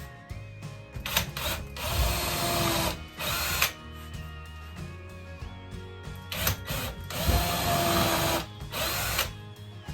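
Power drill driving screws into pine boards, running in two main spells with a whine that rises and falls, about two seconds in and again from about six and a half seconds, with short spurts between. Background music plays underneath.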